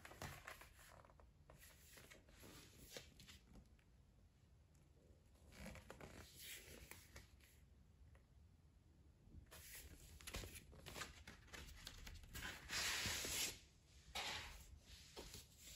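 Cardboard LP record sleeve and a large paper insert being handled: scattered soft rustles and scrapes, with a longer, louder paper rustle near the end.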